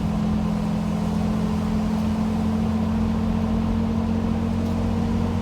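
Toyota Land Cruiser 80 series running steadily at an even speed: a constant low engine drone over a haze of road and tyre noise.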